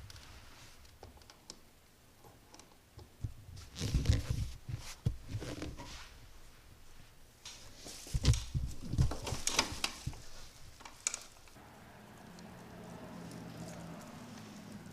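Irregular clicking, knocking and clattering of parts being handled, in two busier spells about four and eight to eleven seconds in, with a faint steady hum coming in near the end.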